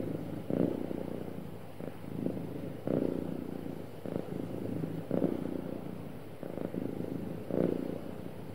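Domestic cat purring steadily, the purr swelling into a louder surge a little over every two seconds.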